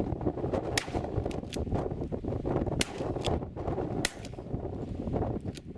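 Strong gusting wind buffeting the microphone, with a few short, sharp clicks and taps over it.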